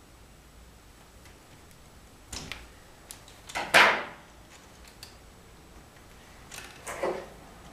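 A few clicks and clunks of hand tools and parts being handled against the wooden layout panel, with one louder clunk a little past halfway and two more near the end.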